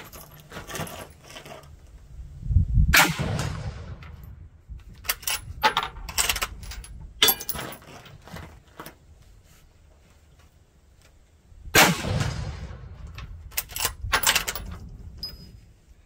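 Two rifle shots from a Steyr Scout bolt-action rifle in 6.5 Creedmoor, one about three seconds in and another about nine seconds later, each echoing briefly. A few shorter, sharp metallic clicks and clangs follow each shot.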